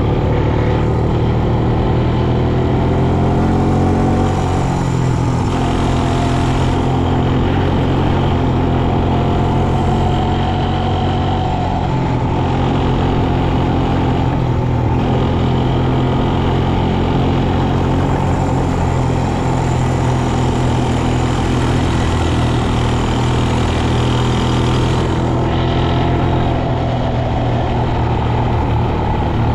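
Quad bike (ATV) engine running under way, heard close from the rider's seat: a steady engine note that rises and falls a little in pitch.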